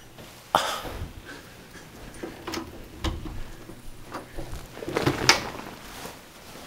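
A door or panel being knocked and moved: a handful of separate knocks and bumps, the loudest a little past five seconds in.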